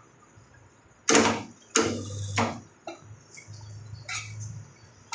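Car dent-pulling spot welder sparking against sheet metal: a run of sharp snaps starting about a second in, six in about three seconds, with a low electrical hum from the welder between them.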